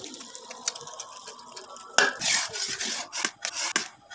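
Semolina poured into hot, bubbling jaggery syrup and ghee in an iron kadhai, with a sudden louder rush about halfway through as the bulk of it goes in. Near the end a metal ladle clicks and scrapes against the pan as the mixture is stirred.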